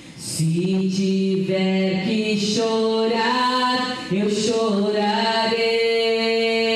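A woman singing unaccompanied into a microphone: long held notes that slide from one pitch to the next, with a short break for breath about four seconds in.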